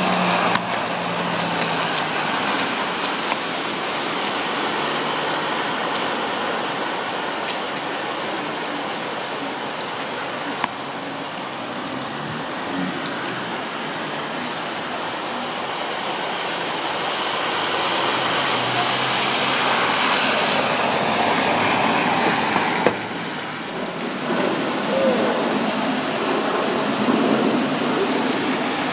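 Steady rush of heavy rain and running floodwater, growing louder for a few seconds about two-thirds of the way through.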